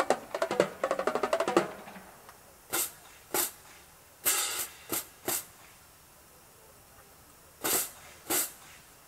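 Marching drumline percussion section playing a fast, dense run of drum strokes that stops about two seconds in, followed by scattered single sharp hits spaced out over the rest.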